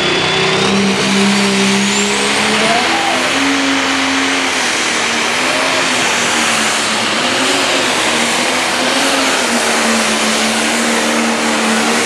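John Deere pro stock pulling tractor's turbocharged diesel engine running flat out under heavy load as it drags the weight-transfer sled. The engine note wavers up and down as it pulls, and a high whine climbs in pitch about a second in.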